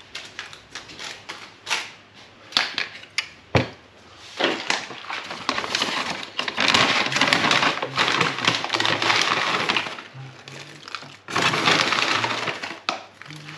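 A stiff brown paper bag crinkling and rustling as it is opened and handled, with oat flakes shaken from it onto loaves of dough. A few sharp knocks come in the first few seconds.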